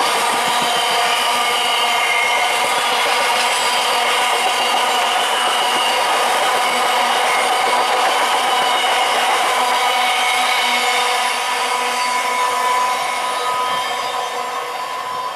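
Rake of bogie tank wagons behind a Colas Rail Class 70 diesel rolling past on the rails, a steady rushing rumble with a high ringing whine over it. It fades as the train draws away near the end.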